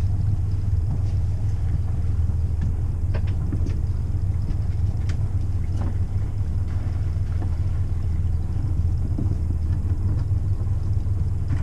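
Sailboat's inboard engine running at low revs while the boat motors slowly in harbour, a steady low rumble.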